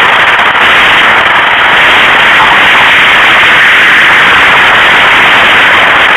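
Loud, steady rush of wind across a camera microphone in flight on a tandem paraglider, drowning out everything else.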